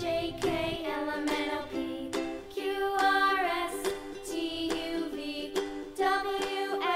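Background music: a children's tune led by a plucked-string melody, with new notes starting at a steady pace.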